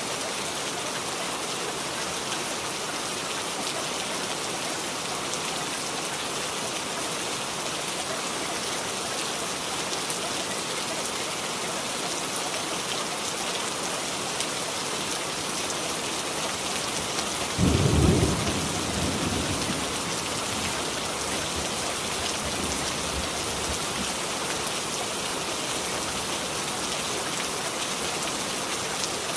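Steady rain, with a single low thunderclap a little past halfway through that rumbles away over a few seconds.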